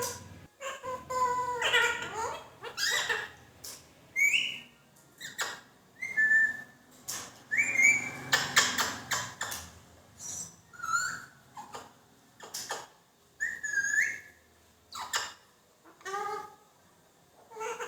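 Pet parrot whistling and calling: a string of short whistled notes and chirps, many sliding up or down in pitch, about one every second or so.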